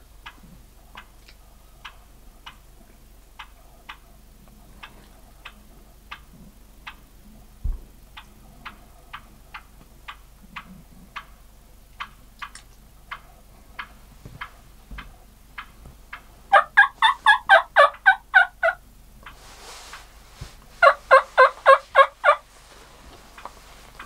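Wild turkey gobbling twice in the second half, each gobble a fast rattling run of notes lasting about two seconds. Faint regular ticking, about two a second, runs underneath.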